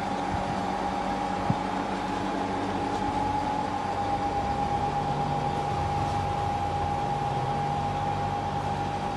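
Steady mechanical background hum with a constant high whine running through it, and one faint click about a second and a half in.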